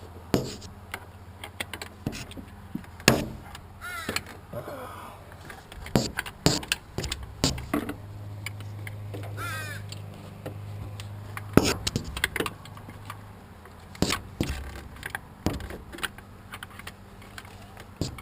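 Hand tools knocking and clinking against engine metal in irregular sharp strikes while a wrench is worked on a bolt. A bird calls in short rapid runs twice in the background.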